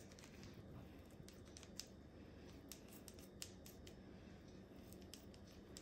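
Kitchen shears snipping as they trim a raw chicken leg: faint, scattered cutting clicks.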